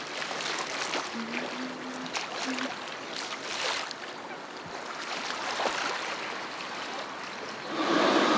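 Lake water lapping at the shore, a noisy wash with small splashes and clicks. Near the end it cuts to louder, steady street traffic noise.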